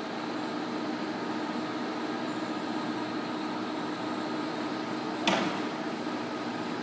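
28" x 96" American Pacemaker engine lathe running, a steady hum and whine from its gear train and 15 hp drive. A single sharp clunk about five seconds in.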